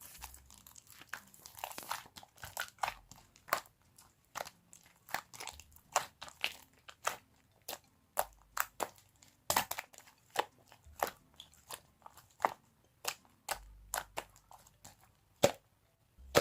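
Green clear slime being pressed and poked by hand, giving irregular sharp pops and clicks, a few a second, with a softer squishing smear about two seconds in.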